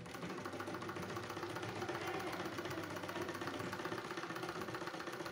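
Renu sewing machine running steadily, stitching a seam along a pleat through a shirt and its lining, with a fast, even clatter of the needle.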